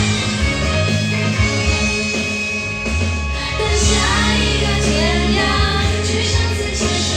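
Amplified pop song with a steady bass line and a singing voice, played through a loudspeaker.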